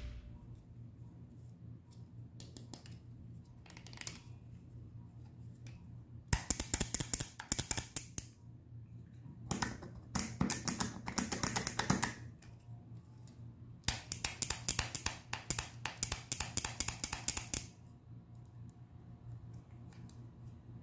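Plastic Minions Happy Meal toy with an orange hard hat, its mechanism clicking rapidly as the hat is pressed, in three bursts of a few seconds each over a faint low hum.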